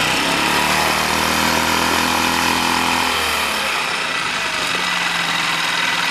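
Lehr 5 hp four-stroke propane outboard engine, freshly fitted with a new powerhead, given a little throttle. It speeds up smoothly from idle, holds the higher revs, then drops back to a steady idle about three and a half seconds in, running normally.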